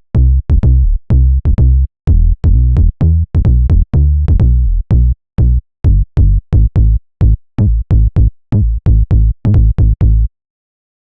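Software synthesizer preset in the Access Virus style, in UVI Falcon, playing a sequence of short, low bass notes, each with a sharp click at its start, in an uneven rhythm of roughly two to four notes a second. The sequence stops about ten seconds in.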